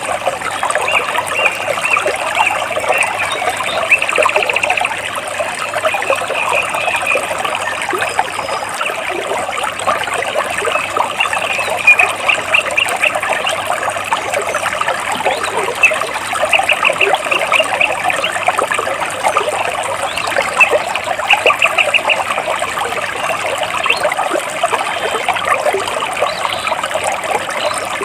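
Stream water trickling and splashing among large rocks, steady throughout, with a small bird singing short, rapid trills several times over it.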